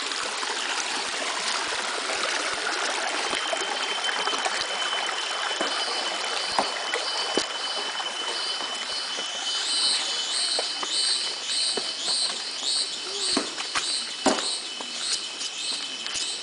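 Stream water running steadily. A thin, steady high whine joins about three seconds in, and from about halfway a high chirping call repeats about twice a second, with a few scattered knocks.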